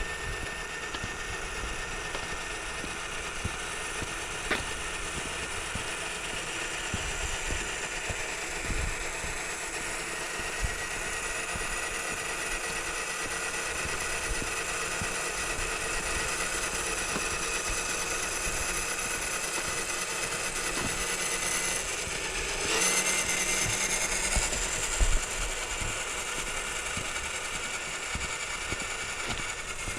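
Electric motor and gearbox of a radio-controlled scale crawler truck whining steadily as it crawls along, the whine rising in pitch about three-quarters of the way through, with a few short knocks.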